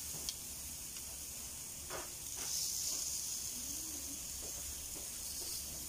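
Pork pieces sizzling on a wire grill grate over hot charcoal: a steady hiss that swells a little about halfway through, with a few light clicks of metal tongs.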